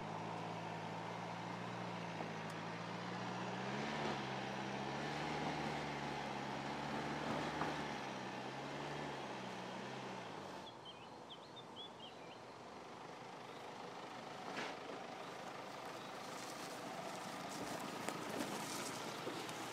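Mercedes-Benz GLC 300d's four-cylinder diesel engine running under off-road driving, its pitch wavering as the revs shift, stopping abruptly about ten seconds in. Then birds chirp briefly and a crackling rustle builds near the end.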